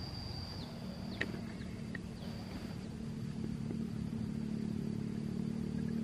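A vehicle engine running, a steady low hum that grows a little louder toward the end. A high, steady insect tone stops about half a second in.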